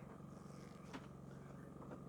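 Champion 4500 inverter generator running, heard faintly as a steady low hum, with a light click about a second in.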